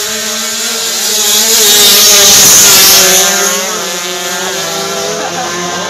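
Kawasaki Ninja drag bike engine revved during a tune-up: it climbs to a loud high rev about a second in, holds it for about two seconds, then settles back to a lower running speed.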